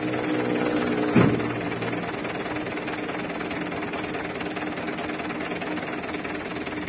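Mitsubishi Canter HD 125's four-cylinder diesel engine idling steadily, with a single sharp knock about a second in.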